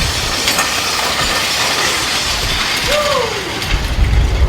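Weighted push sleds (prowlers) scraping and grinding along pavement as two athletes race them. A short shout comes about three seconds in, and wind rumbles on the microphone near the end.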